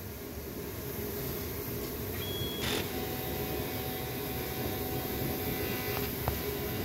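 CNC plasma table machinery running with a steady hum. About two and a half seconds in there is a short burst of noise, followed by a steady whine and a small click near the end.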